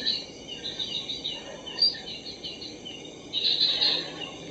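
Night-time forest insects chirping: rows of quick high chirps over a steady high-pitched trill, swelling louder about three and a half seconds in.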